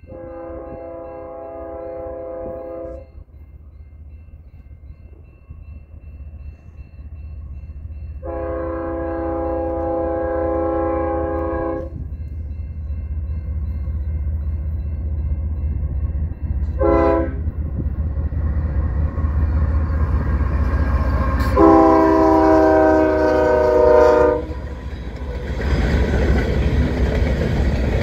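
CPKC freight locomotive's multi-note air horn sounding the grade-crossing signal: two long blasts, one short and one long, the train's approach to a level crossing. Under it the diesel locomotives rumble louder as they near, and after the last blast the locomotives and loaded grain hopper cars roll past close by.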